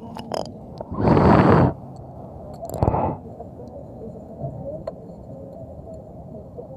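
Steady low rumble of a moving bus heard from inside the cabin. A loud burst of hissy noise lasting under a second comes about a second in, a shorter one near three seconds, with a few sharp clicks.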